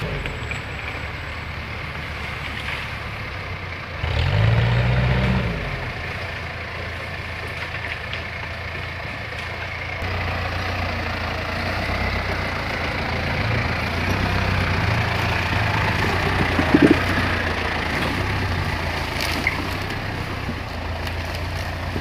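Toyota Land Cruiser 40-series hardtop engine running at low speed as the 4x4 crawls over a rocky trail. About four seconds in, a brief rev rises and falls.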